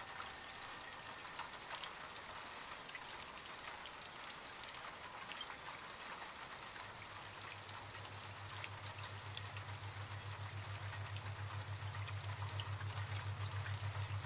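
A steady rain-like hiss with scattered crackles, joined about halfway by a low pulsing hum that grows steadily louder.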